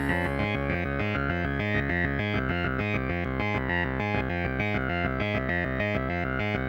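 Electronic background music: fast, evenly repeating synthesizer or electric-piano notes.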